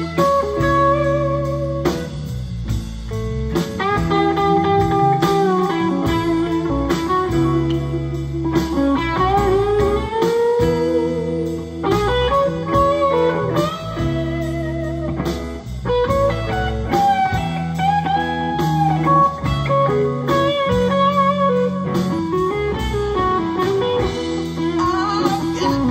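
Live band playing a blues number: electric guitar lead lines with bent, held notes over bass and drums.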